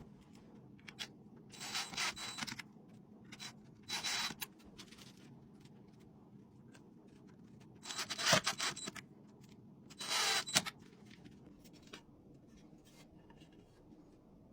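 About four short scraping, rubbing sounds, each around half a second, from the pine shelf pieces being handled and screwed together.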